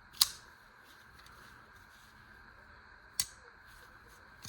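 Crescent pocket knife's ball-bearing blade clicking sharply three times as it is flicked open and snaps shut, the first click the loudest.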